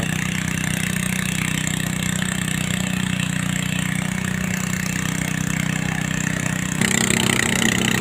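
Steady engine hum of idling heavy construction machinery, such as the excavator working on site. About seven seconds in, the sound gets louder, with more hiss and clatter over the hum.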